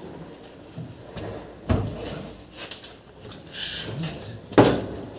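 Two sharp knocks about three seconds apart, the second the loudest, with a short hiss between them, against faint workshop noise.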